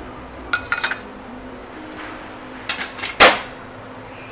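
Metal utensils clinking against a steel pressure cooker and bowls while whole spices are added to the hot oil, with a few light clinks and one loud clank about three seconds in.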